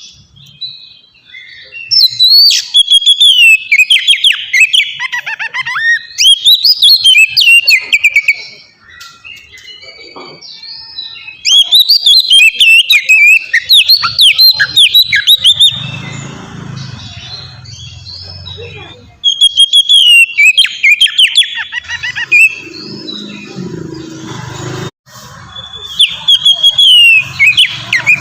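Oriental magpie-robin (kacer) singing loud bursts of rapid, varied whistled notes and trills, four bursts with short pauses between them.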